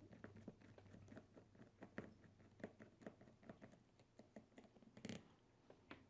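Faint, scattered clicks and light taps of hands working a small RC crawler's plastic wheel to take it off, with a slightly sharper click about five seconds in.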